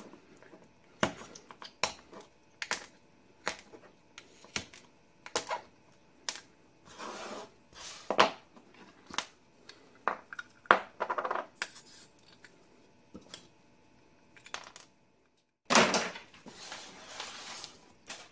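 Irregular clicks, taps and short scrapes of laser-cut plates being handled, with small pieces pushed out of them and the plates set down on a wooden workbench. A few longer scrapes come along the way, the longest near the end.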